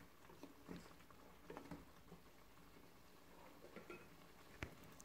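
Near silence, with faint, scattered scrapes and soft taps of a spoon stirring lamb pieces in a cooking pot, and one sharper click about four and a half seconds in.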